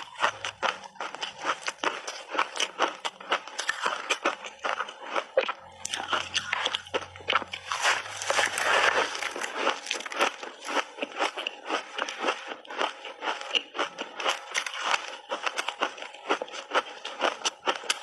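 Layered ice being bitten and chewed close to the microphone: a rapid, continuous run of sharp crunches, denser and louder from about six to ten seconds in.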